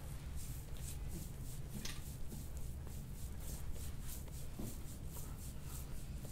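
A forearm sliding over oiled skin in a deep-tissue back massage, making soft rhythmic rubbing strokes about three times a second.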